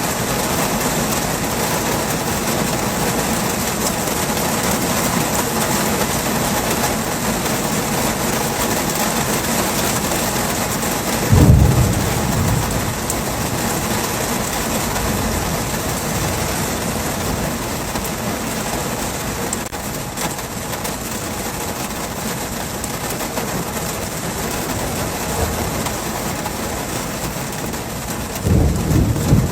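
Heavy rain pouring steadily. There is a brief low rumble about eleven seconds in and another near the end.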